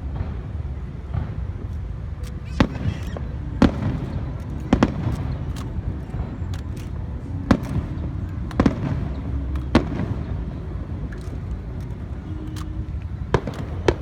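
Fireworks shells bursting overhead: about eight sharp bangs at uneven intervals, over a steady low background rumble.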